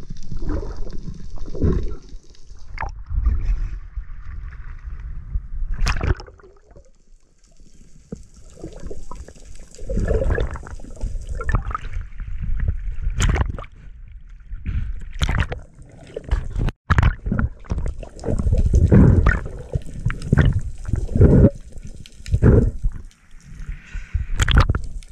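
Seawater sloshing and gurgling around a camera at the sea surface as small waves wash over it, with uneven surges and sharp splashes. There is a quieter stretch about a third of the way through, then denser, louder sloshing.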